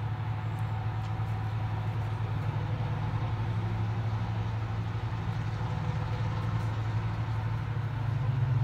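Diesel locomotive engine running with a steady low, pulsing drone, getting louder near the end.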